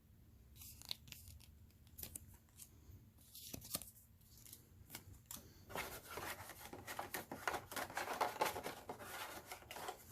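Plastic shrink wrap being torn and crinkled off a deck of game cards. Scattered sharp crackles come first, then a dense stretch of crackling from about six seconds in.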